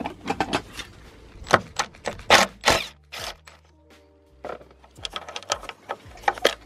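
Metal tools clinking and rattling as they are picked out of a metal tool chest drawer. After a short lull, quick runs of clicks follow as a bolt in the engine bay is worked undone.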